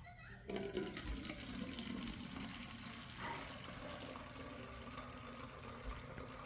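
Water pouring and filling a container, starting about half a second in and running steadily.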